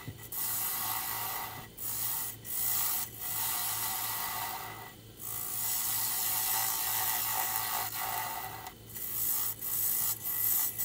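Wood lathe turning a figured maple blank while a hand-held turning tool cuts into it: a continuous rough scraping hiss of wood being cut, broken by several short pauses, over the lathe's steady low hum.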